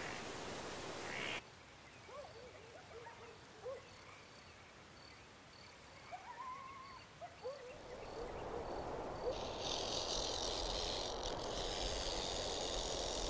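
Outdoor nature ambience that changes with each shot. First a steady hiss, then short chirping animal calls over a faint, evenly repeating high pip, then a broader hiss with a high buzzing from about nine seconds in, like insects.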